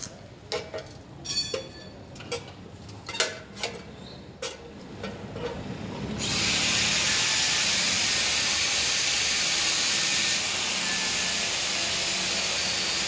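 A few light clicks and metal taps, then about six seconds in a steady, even welding hiss starts and holds.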